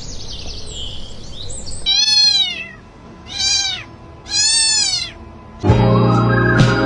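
A cat meows three times, each call rising then falling in pitch, about a second apart. Music with held tones starts shortly before the end.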